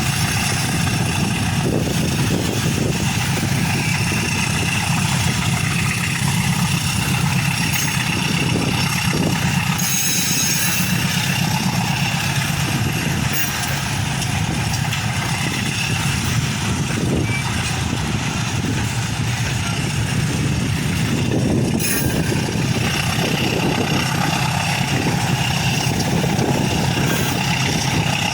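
Diesel locomotive engine running steadily at a low idle-like pace, a continuous low hum.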